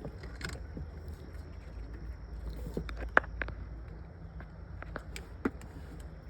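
Hand tool tightening the kill switch's terminal connection at the car battery: a few sharp metallic clicks and taps, the loudest about three seconds in and another near the end, over a low steady rumble.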